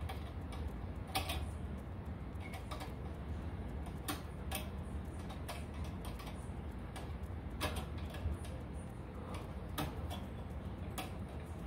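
Light, irregular clicks of a worm-drive hose clamp being tightened with a screwdriver onto the pellet stove's igniter tube, spaced one to two seconds apart, over a low steady hum.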